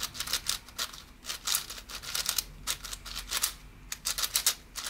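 YJ YuFu 7x7 M magnetic speedcube being turned by hand for its first turns: a quick, irregular run of plastic clicks and clacks as the layers turn, with a brief lull about three and a half seconds in.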